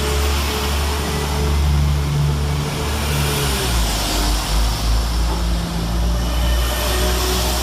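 West Midlands Railway Class 172 Turbostar diesel multiple unit, its underfloor diesel engines running loudly under power. The engine note shifts in pitch about three and a half seconds in.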